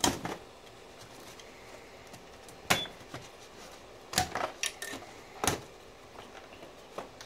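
Several sharp plastic clicks and snaps, spread out over a few seconds, as retaining clips on a hybrid battery pack's top cover are pried and popped out by hand.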